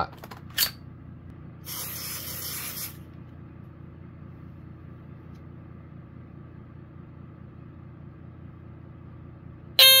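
A short aerosol spray hiss about two seconds in, lasting about a second, as test smoke is sprayed at the alarm; near the end the Ademco 1689 smoke alarm's squealer horn (a Kobishi CLB-27) goes off with a loud piercing tone, the alarm tripping on the smoke.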